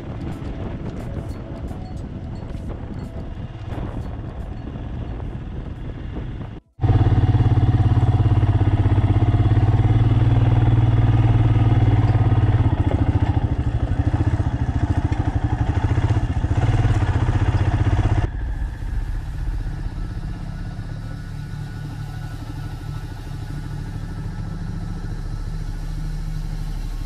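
Motorcycle engine running under way, a steady low hum mixed with wind on the microphone. The sound cuts off briefly and changes abruptly twice, about seven seconds in and again near eighteen seconds. The middle stretch is the loudest.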